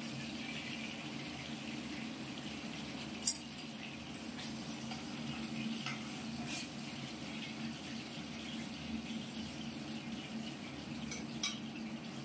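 Cooking oil sizzling steadily in steel pans, with a steady low hum beneath it and sharp metal clinks of utensils against steel plates and pans, the loudest about three seconds in and another near the end.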